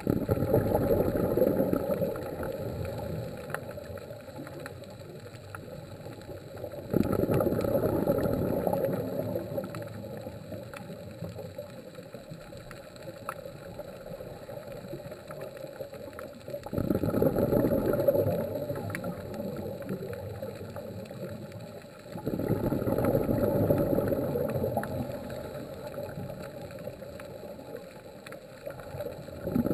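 Scuba diver's exhaled bubbles rushing out of the regulator underwater: four bursts several seconds apart, each starting suddenly and fading away over a few seconds.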